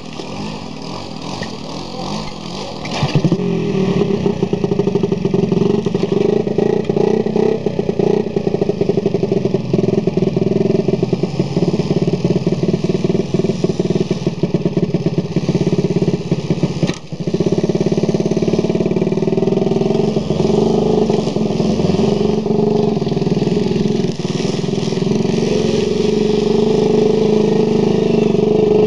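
Small moped engine running: idling for about three seconds, then suddenly much louder and held at high revs as the rider pulls away, with a brief dip in the middle. Near the end the moped rides off past.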